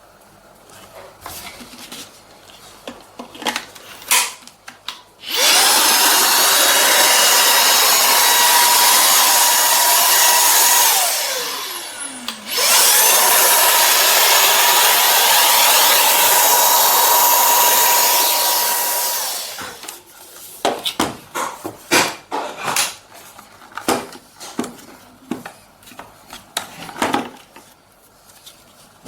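Cordless stick vacuum's brushless motor running with a steady high whine and rushing air for about six seconds, then switched off so that its whine falls in pitch as it spins down. It is switched on again for about seven seconds before stopping. Light clicks and knocks of handling come before and after.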